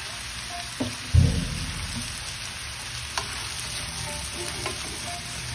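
Seafood and sliced mushrooms sizzling steadily in a hot wok. There is a loud low thump about a second in and a light click around three seconds in.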